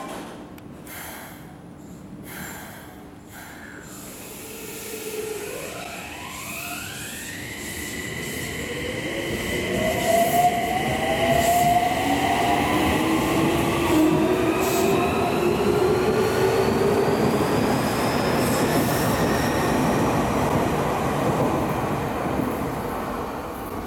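Toei 6300-series subway train pulling out of the station: after a few clicks, its inverter drive sets up a whine that sweeps up in pitch, the swirling sound known as the 'tornado inverter'. Rising motor tones and wheel noise build as the train accelerates away.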